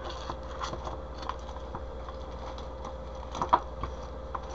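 Light clicks and taps of small bagged wax melts being handled and set down on a desk, with a couple of louder taps about three and a half seconds in.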